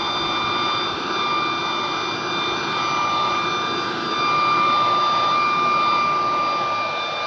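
High-powered leaf blower running flat out, a steady rushing blast with a high fan whine. It grows a little louder about four seconds in.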